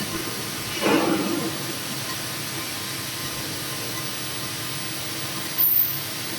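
CNC plate sawing and milling machine running with a steady mechanical hum and hiss. A louder burst comes about a second in, and a short, sharp burst comes near the end.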